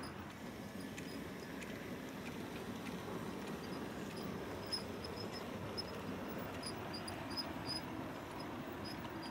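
Double-headed OO gauge model steam train, a Bulleid Pacific leading, running along the layout's track: a steady rumble of wheels and motors, with faint short high squeaks scattered through it.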